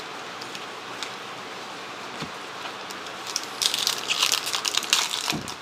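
Foil trading-card pack wrapper crinkling as it is handled, starting about three and a half seconds in, over a steady faint hiss.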